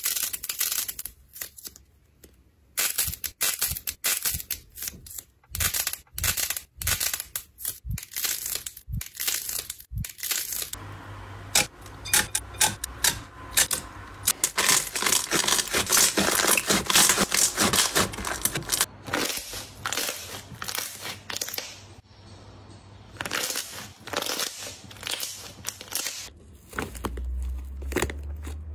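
Slime being squeezed, poked and pressed by hand, giving sticky clicks, pops and crackles. The clicks are sparse and separate at first, then run together into dense crackling for several seconds, then thin out again.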